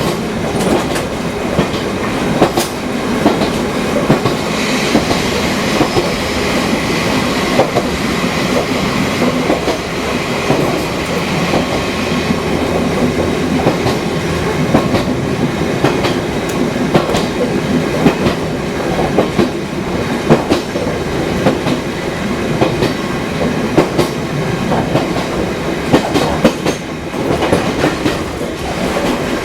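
Fukui Railway 200 series railcar, a car more than fifty years old, running along the line. A continuous rumble of wheels and running gear is broken by frequent sharp clicks and knocks as the wheels pass over rail joints.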